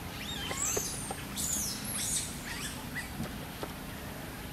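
A run of short, high-pitched animal squeaks and chirps that slide up and down in pitch, thickest in the first two seconds and thinning out after about three and a half seconds.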